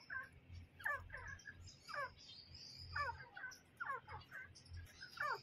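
Grey francolin calling: a series of short, falling call notes, about one or two a second, some in quick pairs. Fainter high chirps from small birds sound above them.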